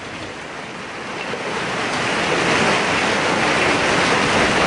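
Heavy rain pouring down in a steady hiss that fades in and grows louder over the first two seconds.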